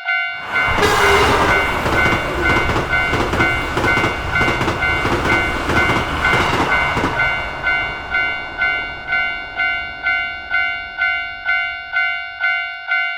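Japanese railroad crossing warning bell ringing about twice a second while a train rushes past. The train noise fades away a little over halfway through, leaving the crossing bell ringing on.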